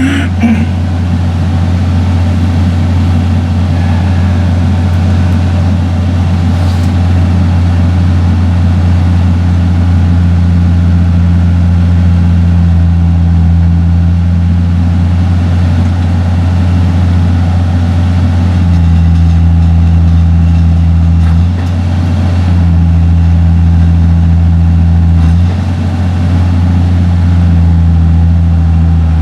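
John Deere 6068 six-cylinder diesel running steadily while warming up after a thermostat replacement. A higher hum above the engine note comes and goes a few times in the second half.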